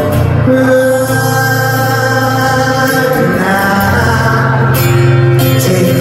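Live band music played loud through a venue's PA, with acoustic guitar and long sustained notes that a man's singing voice joins.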